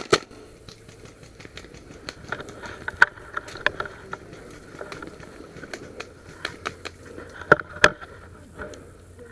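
Airsoft gunfire: scattered sharp pops and clicks, with two loud shots close together near the end, over a faint scraping of movement.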